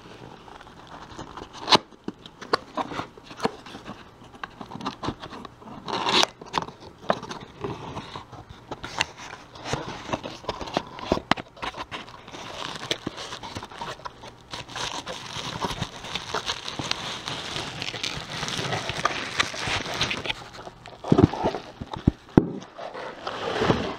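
A cardboard box being opened by hand and a bubble-wrapped item pulled out: scattered scrapes and clicks of cardboard, then a long stretch of bubble wrap crinkling and crackling, with a few louder handling knocks near the end.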